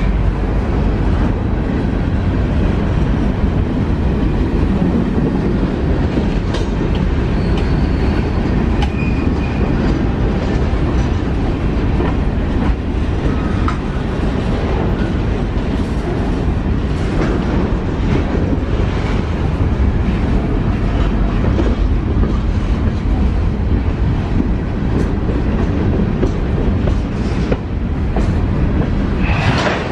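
Canadian National freight train of covered hopper cars rolling past at close range: a steady rumble of steel wheels on the rails, with clicking as the wheels pass over rail joints.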